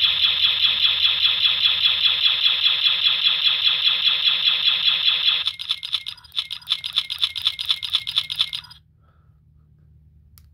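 Stormtrooper blaster sound effects from a Plecter Labs Blaster Core sound board through the prop E-11's built-in speaker: rapid full-auto fire at about seven shots a second. After about five and a half seconds it changes to a thinner, uneven stutter for about three seconds, the board signalling that the ammo is spent, then stops.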